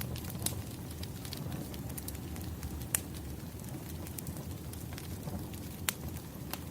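Wood fire burning with a steady low rumble and scattered crackles, with a few sharper pops of burning firewood standing out.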